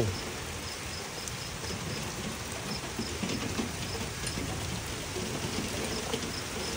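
Steady rain falling, with scattered drops tapping on nearby surfaces.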